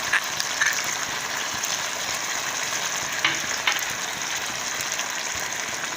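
A pan of shukto vegetables sizzling steadily on the stove, with a spoon stirring and knocking against the pan a few times.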